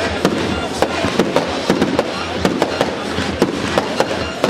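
Dense fireworks barrage: aerial shells bursting in rapid succession, several sharp bangs a second over a steady wash of noise.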